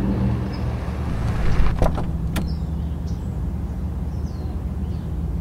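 Small car's engine idling with a steady low hum. Nearly two seconds in, a car door clunks twice, about half a second apart, as it is opened and shut.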